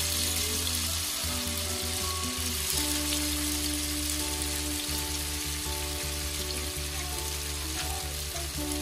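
Tofu cubes sizzling steadily as they fry in hot oil in a pan, with soft sustained background music underneath.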